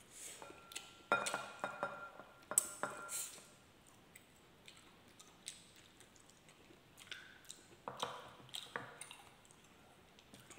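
Small ceramic bowls clinking: a few sharp clinks with a brief ring in the first three seconds. Later come softer clicks and eating sounds.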